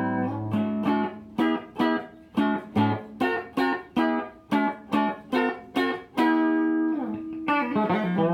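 Electric guitar played through an S&K VHD preamp into a rebuilt Acoustic 833 power amp. A held chord comes first, then a run of about a dozen short, separately picked notes at roughly two a second, then another chord rings out before a few more notes near the end.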